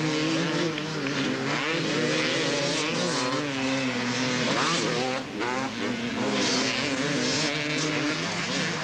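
Several motocross bikes racing on a dirt track, their engines overlapping and revving up and down as the riders work through the course.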